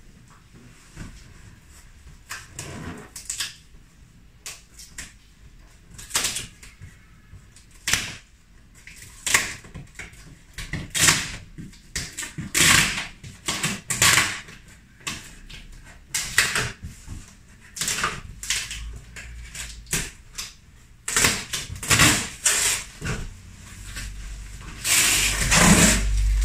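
A cardboard box and its packaging being opened by hand: irregular rustling, scraping and knocking, in short bursts, with a longer, louder stretch of handling near the end.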